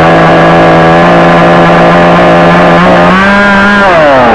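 A 62cc two-stroke chainsaw running near full throttle at a steady pitch while cutting through a branch. About three seconds in, the pitch rises, then it falls away near the end as the throttle is let off.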